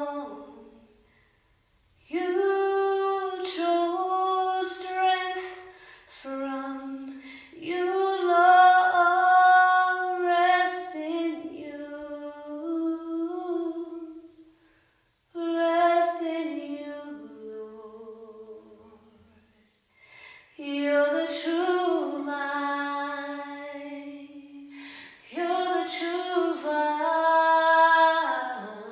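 A woman singing a slow worship song unaccompanied, in long held phrases separated by short pauses.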